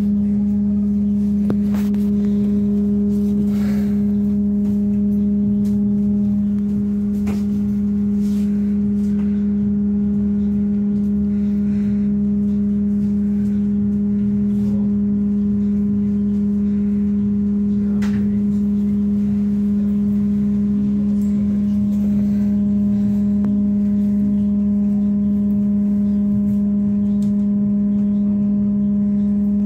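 Steady electrical hum of a Dnipro-T203 trolleybus, heard from inside the passenger cabin: one strong low tone with fainter overtones, holding the same pitch throughout.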